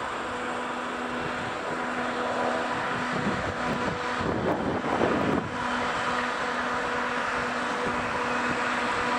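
Slovenian Railways electric multiple unit rolling through the station with a steady electric hum. A louder rushing swell comes about four to five seconds in.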